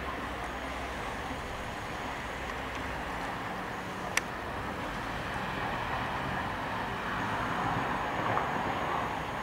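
Steady hum of distant city road traffic, with one sharp click about four seconds in.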